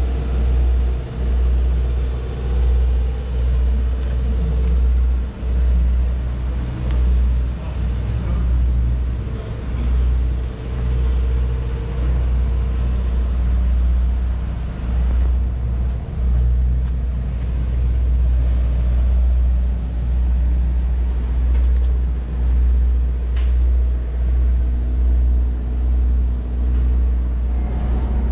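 Low wind rumble on the microphone, swelling and easing every second or so, over faint outdoor background noise.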